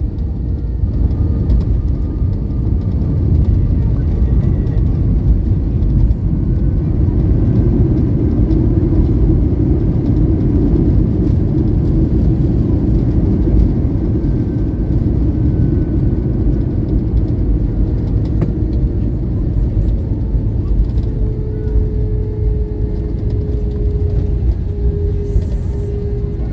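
Airbus A320-232 cabin noise during landing: a steady, loud low rumble of its IAE V2500 engines and rushing air, swelling slightly midway. A steady engine tone comes in about three quarters of the way through.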